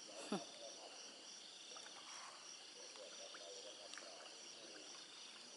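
Faint, steady chorus of insects, crickets trilling in several high even bands, with a short falling sound just after the start.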